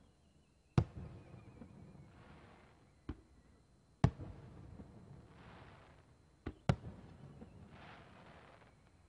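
Aerial firework shells bursting: a series of sharp booms, the loudest about one, four and nearly seven seconds in, with weaker ones between, each trailing off in a rumbling echo. Between the booms come bursts of crackling, and a thin whistle falls in pitch over the first two seconds.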